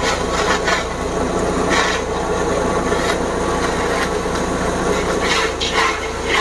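Grass chopper machine running steadily while chopping sugarcane stalks: a constant engine drone with irregular crackling cuts as the cane passes through the blades. The engine runs at an easy, moderate throttle setting.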